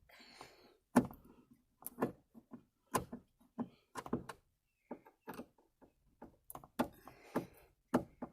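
Irregular plastic clicks and knocks from a Hyundai Sonata sun visor being unplugged from its wiring connector and worked loose from its mount, with light rustling of handling between the clicks, heard inside the car's cabin.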